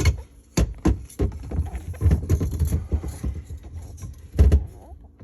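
Irregular knocks, clicks and rattles of hands and tools working a stiff slip nut on a sink's P-trap drain pipe.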